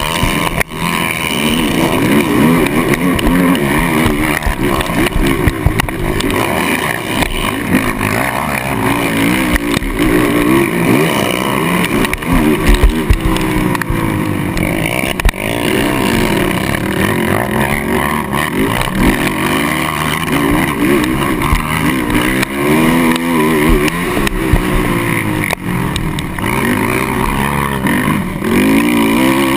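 Kawasaki KFX450R quad's single-cylinder four-stroke engine under race load, its pitch climbing and dropping over and over as the rider accelerates, shifts and lets off, with wind rushing over the on-board camera microphone.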